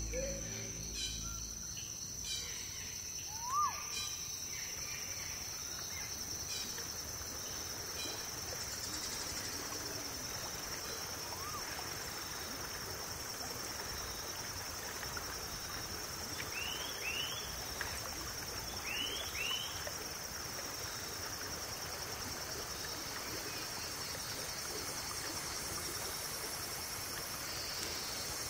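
Tropical forest ambience: a steady high-pitched insect trill over an even background hiss, with a few short bird calls. There is one call about three and a half seconds in, and two pairs of quick high chirps around seventeen and nineteen seconds.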